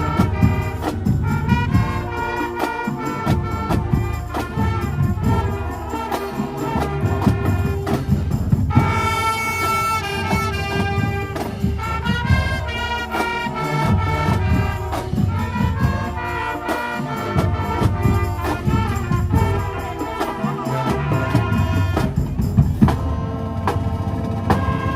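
Middle school marching band playing: brass horns over drums, with a bright held brass chord about nine seconds in.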